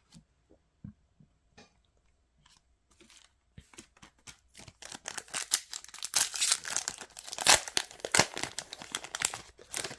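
A trading-card booster pack's wrapper being torn open and crinkled, a dense crackling that builds up about halfway through, after a few faint ticks of handling.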